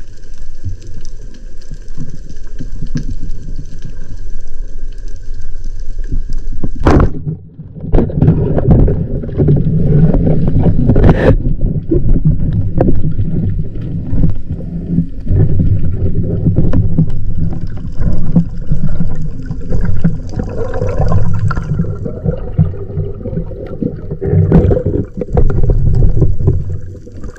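Underwater camera sound of a spearfisher swimming: water rushing and bubbling against the housing, with handling knocks, one sharp knock about seven seconds in. A faint steady high whine runs under it for the first seven seconds.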